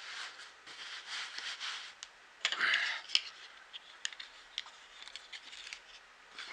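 Close handling noise: rustling and small sharp clicks as a hat is put on and a pair of sunglasses is handled, with one louder brief swish about two and a half seconds in.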